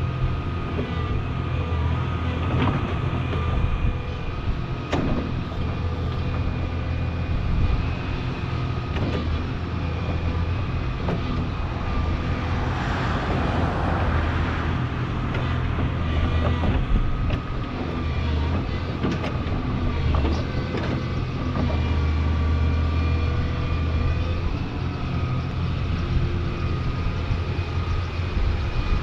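Volvo tracked excavator's diesel engine running steadily under load, with a steady whine, scattered clanks and knocks, and a rushing noise about halfway through.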